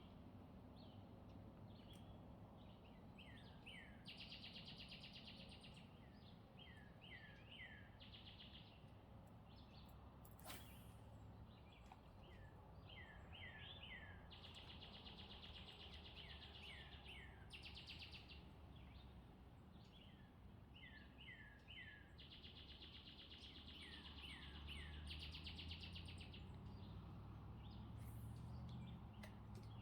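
A songbird singing faintly, repeating a phrase of quick down-slurred notes and buzzy trills about every nine seconds, over a low steady rumble that grows louder near the end.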